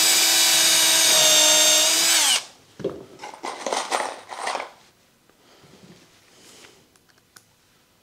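Cordless drill-driver driving a screw into plywood: a steady motor whine for about two and a half seconds that sags slightly in pitch as the screw seats, then stops. A few knocks follow as the drill is put down on the workbench.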